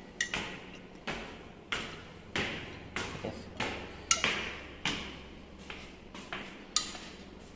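Footsteps on concrete stairs, about one and a half steps a second, with a light ringing clink on a few of them.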